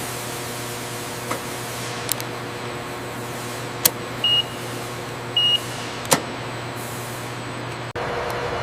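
Steady machinery hum with a low drone, broken by several sharp clicks and two short high beeps about a second apart in the middle. Near the end it cuts out for an instant and a slightly louder hum takes over.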